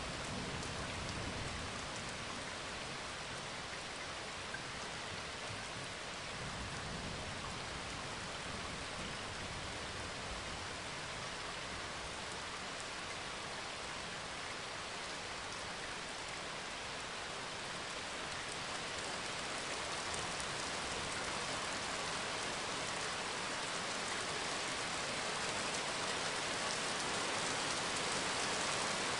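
Steady rain falling, an even hiss that grows a little louder near the end.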